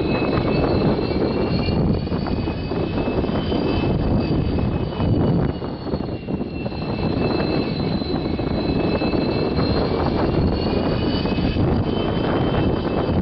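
Union Pacific EMD SD70M diesel-electric locomotives working past at low speed, a steady deep diesel rumble with a high whine running over it.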